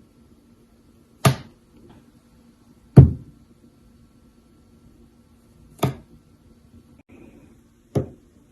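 Four sharp knocks, each dying away quickly, spaced one to three seconds apart over a faint steady low hum.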